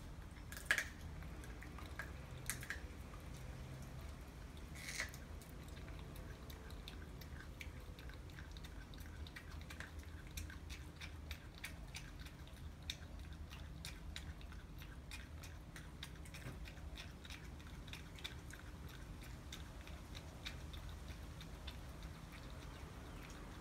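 Chihuahuas chewing raw chicken frames, their teeth crunching through the raw bone in a steady run of small cracks and crunches, with a few louder cracks in the first five seconds.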